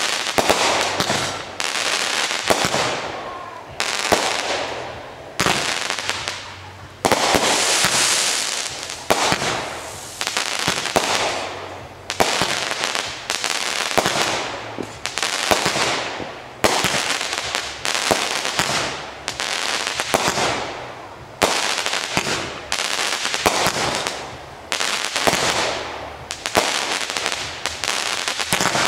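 A 500-gram consumer fireworks repeater cake firing shot after shot, about one every second or so, each a sharp bang followed by a fading rush of noise as the stars burst.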